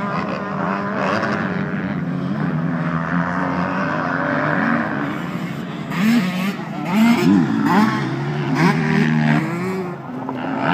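Motocross motorcycle engines revving on a dirt track, their pitch rising and falling with each throttle change as the bikes ride past. Several engines overlap, and the revving is busiest in the second half.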